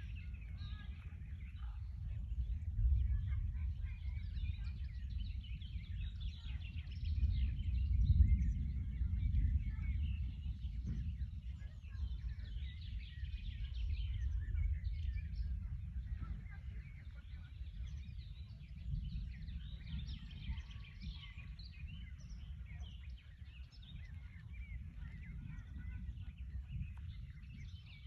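Outdoor ambience of many small birds chirping continuously, over a low rumble that swells about three and eight seconds in.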